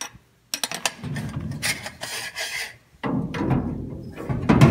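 Metal parts clicking, then scraping and rubbing, as a steering column and its mounting bracket are worked into place at the floor of a truck cab. There is a short lull about three seconds in.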